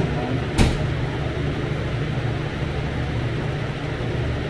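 Steady low mechanical hum, with one sharp click a little over half a second in.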